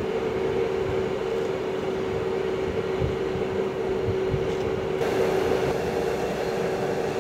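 Southeastern Class 395 Javelin electric multiple units pulling away with a steady electric whine over track rumble. About five seconds in, the sound changes to a Eurostar Class 373 train pulling out along the platform.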